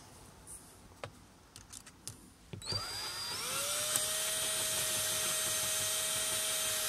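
Cordless 12-volt drill driving a nut-driver bit, tightening a worm-drive hose clamp: a few faint clicks, then the motor spins up a little under three seconds in and runs at a steady pitch.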